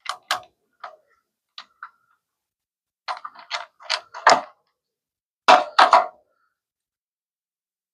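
Sharp clicks and clacks of hand tools and metal parts being handled on a motorcycle: a few single knocks, then quicker runs of several clicks about three seconds in and again near six seconds.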